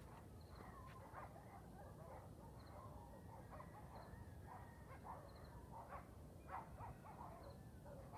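Faint, distant dogs barking and howling: a scatter of short calls through the whole stretch, over a low steady background rumble.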